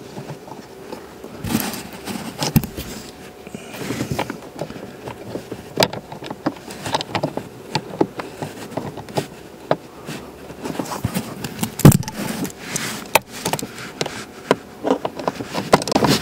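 Scattered clicks, taps and rustles of hands handling the plastic blower motor resistor and its small screws in the blower housing under a car's dashboard. A sharper knock comes about twelve seconds in.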